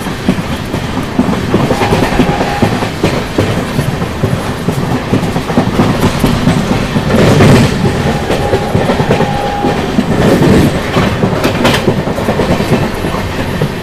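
Rajdhani Express passenger train running at speed, its wheels rumbling and clattering rhythmically over the rail joints. A faint high tone sounds briefly twice.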